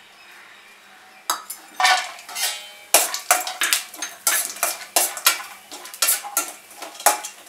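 Steel spatula scraping and clinking against a stainless-steel kadhai as pieces of dry coconut are stirred and dry-roasted in a little oil. It starts quietly, then about a second in a fast, uneven run of sharp metal scrapes and knocks begins and keeps going.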